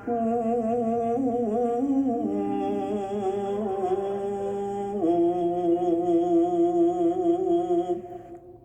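A voice humming a slow melody in long held notes, changing pitch a few times and fading out near the end.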